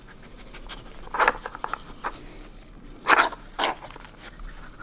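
A Samoyed sniffing in a few short, sharp bursts as it noses at a plastic dog puzzle toy, hunting for hidden treats.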